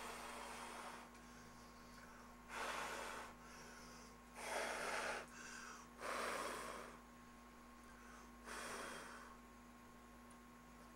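A man breathing heavily close to the microphone: about six loud, noisy breaths, each under a second, at irregular intervals, over a faint steady hum.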